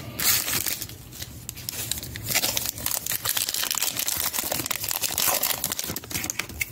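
Foil trading-card pack wrapper crinkling and tearing as it is opened by hand, a dense run of crackles with a short lull between about one and two seconds in.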